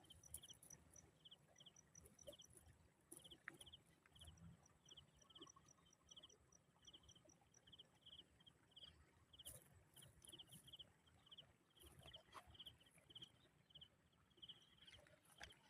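Faint insect chirping: short trilled chirps, about two a second, with a fainter, higher ticking call alongside in short runs.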